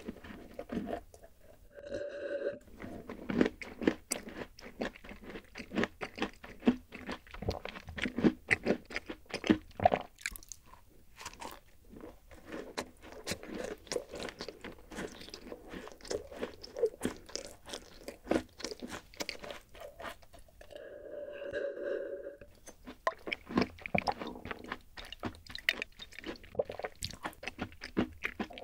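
Close-miked crunching and chewing of a crumbly rice-oat chocolate-chip cookie, with repeated crisp crackles of bites breaking down in the mouth. Twice, once about two seconds in and again past the twenty-second mark, a brief pitched sound rises over the crunching.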